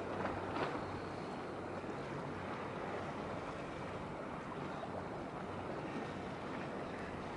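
Steady wash of wind and water under a low, steady hum from the passing container ship WAN HAI 266.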